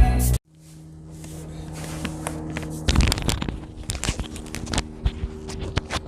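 Intro music cuts off half a second in, then a steady low hum with a run of scattered clicks and knocks, as of objects being handled.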